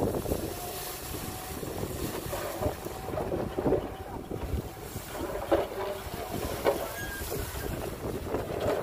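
Heavy construction machinery's diesel engine running with a steady low rumble, wind buffeting the microphone, and scattered knocks throughout.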